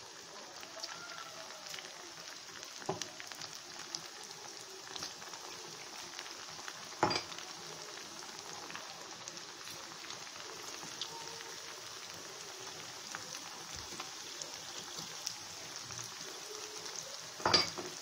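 Pakoda batter of ground leftover rice and gram flour sizzling and crackling as it deep-fries in hot oil in an iron kadai. There are two louder sharp sounds, about seven seconds in and near the end.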